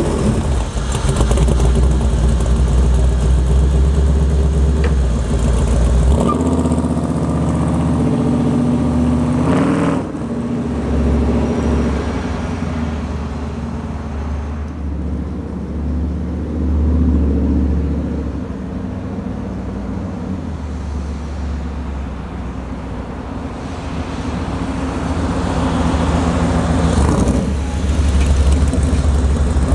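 Chevrolet 502 big-block V8 in a 1970 Chevrolet C10 pickup driving off, its engine note rising and dropping in pitch several times. It fades somewhat, then gets louder again as the truck comes back past near the end.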